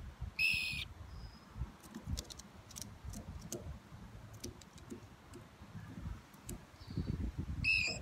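A bird gives two short, steady whistled calls, one near the start and one near the end, with a few faint high ticks between them.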